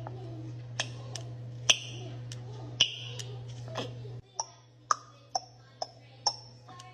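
A series of sharp clicks and taps, irregular, about one or two a second, over a steady low hum that cuts off about two thirds of the way in.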